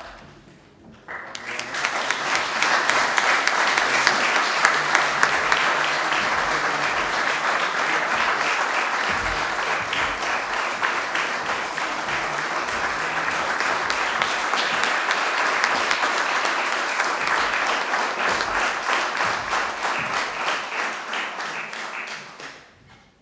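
Audience applauding: a dense round of clapping that starts about a second in, holds steady and dies away near the end.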